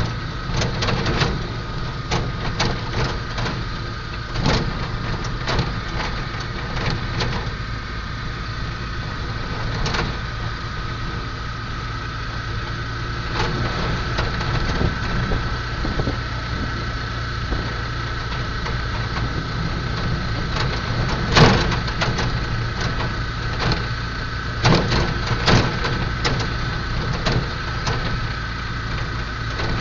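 Engine and road noise inside a moving vehicle's cabin: a steady low hum with a steady whine above it, and frequent short rattles and knocks, one sharper knock about two-thirds of the way through.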